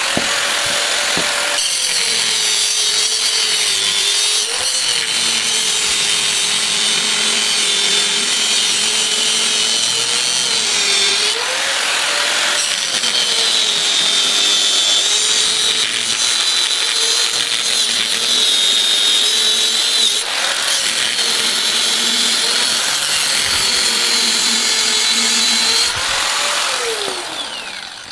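Electric angle grinder cutting into the steel shell of an inverter air-conditioner compressor: a steady harsh grinding hiss over the motor's whine, which dips and recovers each time the disc bites. Near the end the grinder is switched off and winds down.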